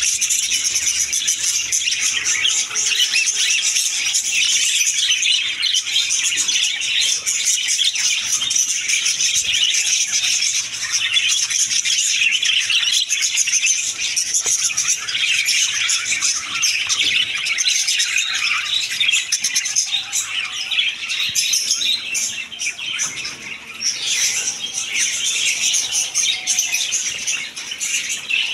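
A flock of caged budgerigars chattering, with many quick warbling chirps overlapping in a dense, unbroken chorus.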